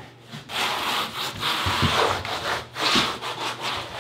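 A hand float rubbed back and forth over a studded plastic DITRA-HEAT membrane, pressing it down into thin-set: a run of scraping strokes starting about half a second in, with a few soft thuds among them.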